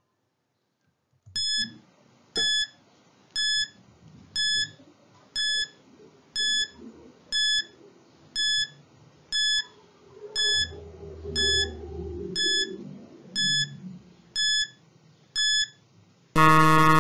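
Countdown timer sound effect: a short electronic beep once a second, fifteen beeps, ending in a loud harsh buzzer as the count reaches zero.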